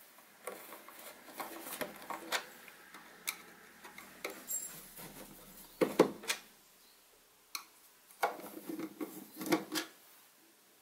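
Hand screwdriver undoing the screws of a Sieg SC4 lathe's sheet-metal back panel: small metallic clicks and scrapes, a sharper knock about six seconds in, and a run of knocks near the end as the metal panel is handled.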